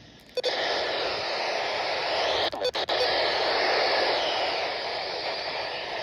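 Weather radio receiver beeping briefly, then hissing with steady static from an untuned or weak channel; the hiss drops out for a moment a few times about two and a half seconds in.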